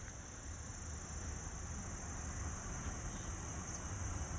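Steady chorus of insects, a continuous high-pitched buzz that does not break, over a low rumble.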